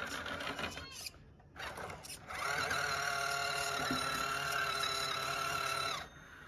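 RC car's electric motor and gearbox whining. A brief whir in the first second, then about two seconds in the whine rises quickly to a steady pitch, holds for about three and a half seconds, and cuts off.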